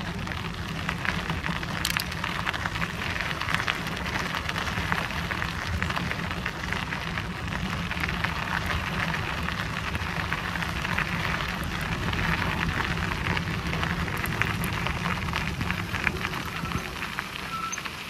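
Bicycle tyres rolling over a forest trail, a steady crackling crunch, with wind rumbling on the microphone.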